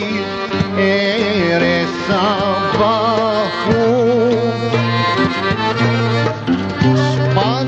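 Albanian folk song performed live: a man sings into a microphone over instrumental accompaniment, the melody wavering through ornamented turns above long held low notes.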